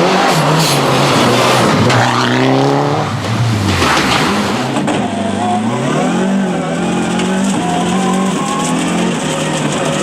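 Mitsubishi Lancer Evolution World Rally Car's turbocharged four-cylinder engine being driven hard: the pitch climbs and falls through gear changes, drops off sharply about four seconds in, then pulls up again.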